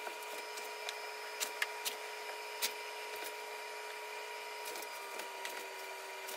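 A handful of short sharp clicks, mostly in the first half, from a caulking gun of silicone sealant being handled, over a steady room hum.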